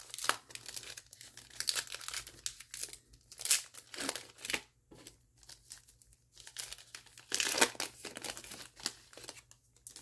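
Shiny foil wrapper of a trading card pack crinkling and tearing as it is peeled open by hand, in irregular crackles, loudest about four seconds in and again around eight seconds in.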